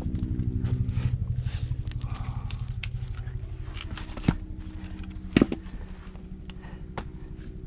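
An engine running steadily with a fast even pulse. A sharp knock comes about four seconds in and a louder double knock about five and a half seconds in, typical of an axe striking firewood, with lighter clicks of wood in between.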